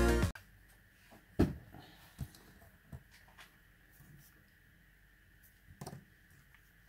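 Music cuts off at the very start, then a few soft knocks and clicks of hands handling a plastic mini drone and a small screwdriver on a tabletop: the clearest about a second and a half in, another near six seconds. A faint steady whine runs underneath.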